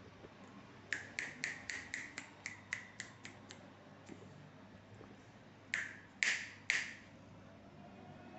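Fingers snapping: a quick run of about a dozen sharp snaps, then a pause and three louder snaps near the end.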